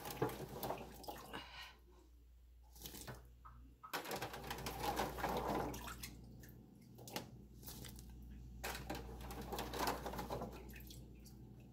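Water and liquid sounds in a kitchen: irregular splashing and dripping with scattered clicks and knocks, heavier in two stretches from about four and about nine seconds in.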